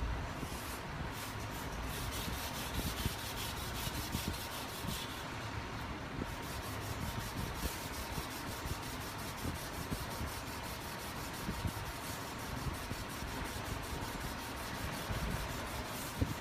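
Hand sanding block rubbed back and forth over a primed repair patch on a car bumper, wet-sanding with water sprayed on as lubricant: a steady scrubbing of closely repeated strokes.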